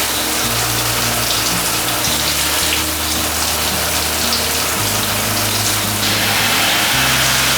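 Steady rush of water running from a tap.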